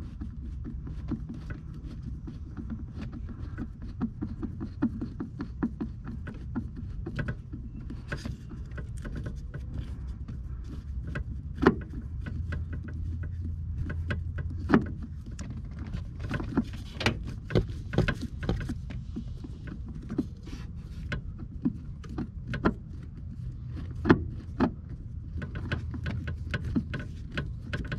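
Flat-blade screwdriver turning self-tapping screws out of a third-generation Camaro's plastic kick panel, with hands handling the trim: irregular small clicks and scrapes and a few sharper knocks, over a steady low hum.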